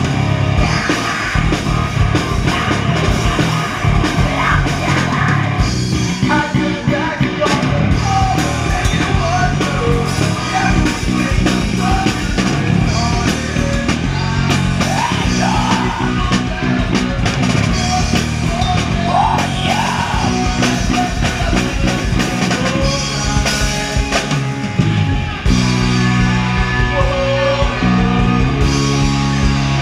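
Live pop-punk/easycore band playing: distorted electric guitars, bass and drum kit with a lead singer's vocals on top, with a brief break about 25 seconds in before the band comes back in.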